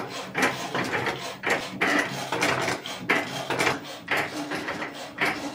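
Cricut Maker 3 cutting machine working on smart vinyl: its tool carriage and feed rollers move in short, uneven runs, with a string of irregular clicks and knocks a few times a second.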